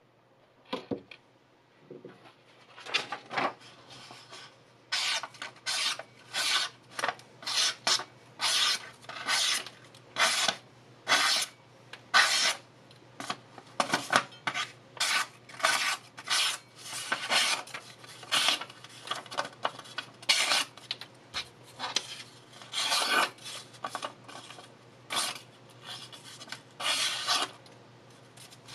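An 8-inch XINZUO VG10 Damascus chef knife slicing through sheets of paper held in the hand, each cut a quick scraping swish, repeated over and over at about one cut a second.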